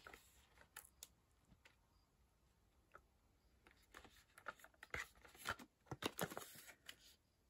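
Faint handling noises: light clicks and short rustles of products and packaging being moved about, sparse at first and busier in the second half.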